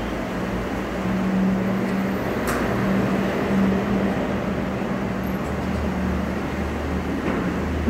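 Steady mechanical hum over background noise, with a deeper drone coming in about five and a half seconds in and a faint click about two and a half seconds in.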